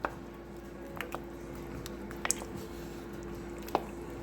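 Pasta being stirred in a pot of thick tomato cream sauce: soft squishing with a few sharp clicks of a utensil against the pot. A steady hum runs underneath.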